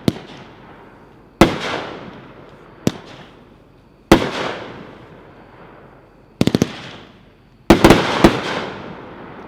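Heavyweight Aerial Gold fireworks cake firing: sharp reports, each trailing off in a fading crackle and echo. They come singly at first, about one every second or so, then as a rapid volley of about four around six and a half seconds in, and several more in quick succession near the end.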